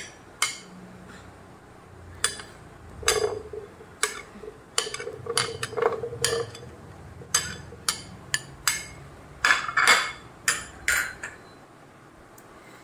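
Steel spoon knocking and scraping against a ridged glass bowl as mango pieces are pushed off into a blender jar: a string of sharp, irregular clinks, some leaving a brief ring. They stop about a second before the end.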